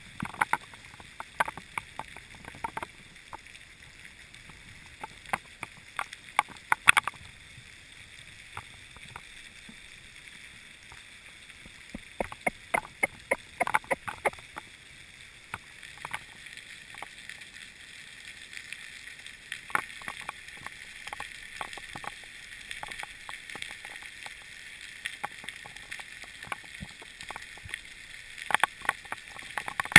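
Underwater ambience picked up by a mask-mounted camera in its housing while freediving: a steady hiss with scattered sharp clicks and ticks, bunched in quick runs a few times.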